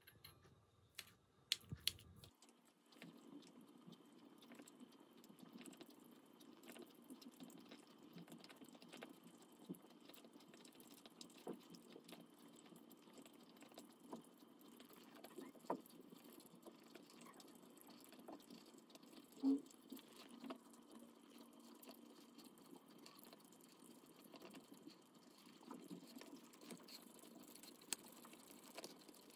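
Small dog eating wet food from a stainless steel bowl: faint, steady licking and chewing, with many small clicks of tongue and food against the metal and one louder click about two-thirds of the way through. A couple of sharp clicks come about two seconds in.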